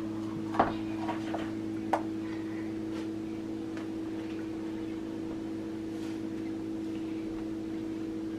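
A few light knocks and taps from a plastic measuring cup against a plastic flour container and bowl as corn flour is scooped, the sharpest in the first two seconds, over a steady low electrical hum.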